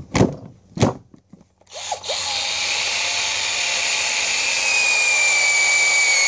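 A couple of short handling knocks, then a Mastercraft cordless drill run freely with no load for about four and a half seconds, a steady motor whine that drops slightly in pitch near the end before cutting off. The drill is running on a battery that had once been dead, and it works.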